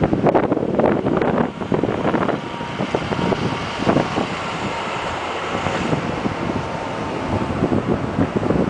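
A line of cars and SUVs driving past one after another on a highway, with tyre and engine noise. Wind buffets the microphone, heaviest in the first couple of seconds.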